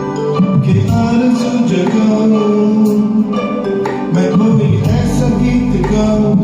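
Music from a Bollywood film song, a recorded accompaniment with a melodic line over sustained bass notes.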